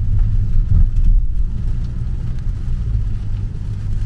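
Steady low road rumble of a car heard from inside the cabin while driving.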